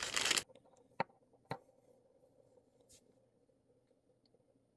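A brief rustle, then two light, sharp clicks about a second in, then near silence with faint room tone and a steady electrical hum.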